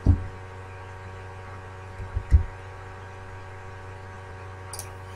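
Steady electrical hum with a faint hiss over an open video-call microphone, broken by a short low thump at the start and two more about two seconds in.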